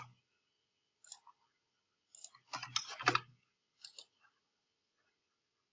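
Scattered clicks of a computer mouse and keyboard as text is selected, copied and pasted, thickest in a quick cluster about two and a half to three seconds in.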